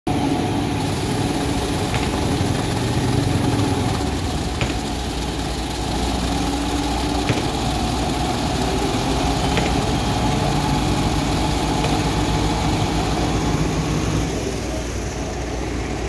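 Diesel engine of a Doosan crawler excavator running steadily, with a few light clicks spaced a couple of seconds apart.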